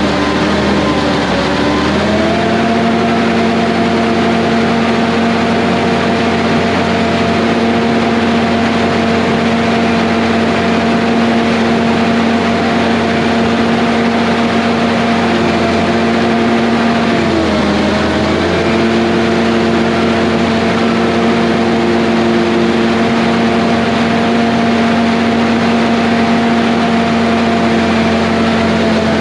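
John Deere 850 bulldozer's diesel engine running steadily under work. Its pitch rises about two seconds in, sags briefly about seventeen seconds in, then comes back up.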